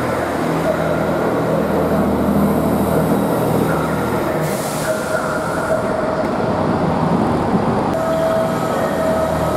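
Diesel multiple units moving slowly through the station: a steady engine drone as one unit passes, then a Northern Class 158 drawing past. A brief hiss comes about halfway through, and a steady high whine joins about eight seconds in.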